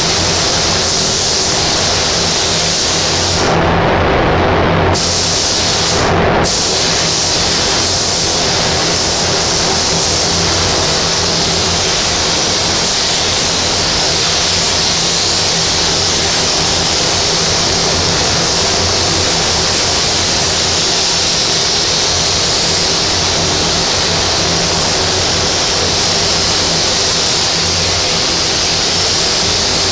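3M Accuspray HVLP gravity-feed spray gun hissing steadily as compressed air atomises paint onto a car panel. The hiss dips briefly about four and again about six seconds in.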